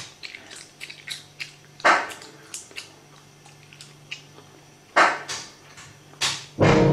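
Laptop keyboard typing: quick, irregular key clicks over a faint steady hum, with two louder sharp sounds about two and five seconds in. Music comes in loudly near the end.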